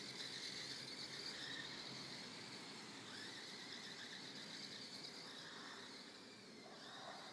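Faint high-pitched whine of a radio-controlled car's motor as it drives across snow, slowly fading as the car moves away.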